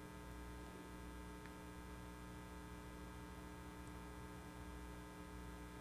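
Faint, steady electrical mains hum: a buzz of several steady tones with nothing else over it.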